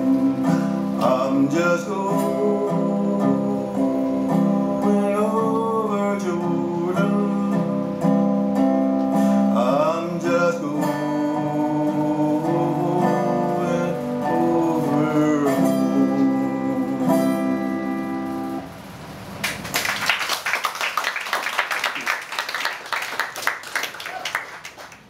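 Acoustic guitar played flat across the lap with a slide, slow sustained notes sliding up and down in pitch; the tune ends about three quarters of the way through. Then an audience applauds for several seconds.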